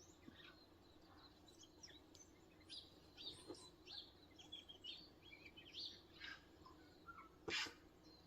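Faint birdsong: several short chirps and trills from wild birds, with one brief sharp rustle or knock about seven and a half seconds in.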